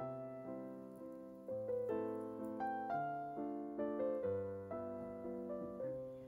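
Background piano music: a melody of struck, fading notes over chords.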